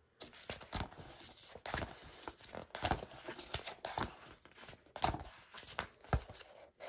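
Pages of a thick wallpaper sample book being flipped and turned, each turn a papery swish and flap, about one a second.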